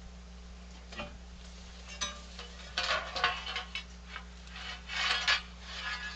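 Metal parts and tools clinking, rattling and scraping as they are handled and moved about, in irregular bursts that are loudest about three and five seconds in, over a steady low electrical hum.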